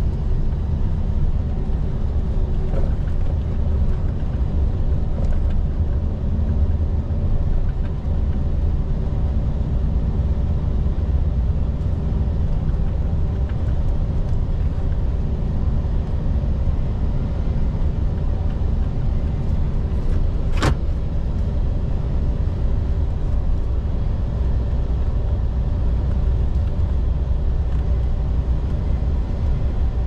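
Volvo FH 460 truck's 13-litre six-cylinder diesel and road noise while driving, a steady low drone. A single sharp click about two-thirds of the way through.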